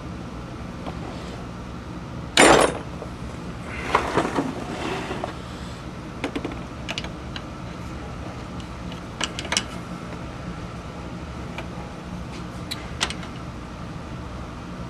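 Metal clicks and clinks of a wrench working the nut on a lathe foot's mounting bolt, with a loud clatter about two and a half seconds in and a run of rattling around four to five seconds; the bolt shaft is spinning with the nut instead of pulling the foot down. A steady low hum runs underneath.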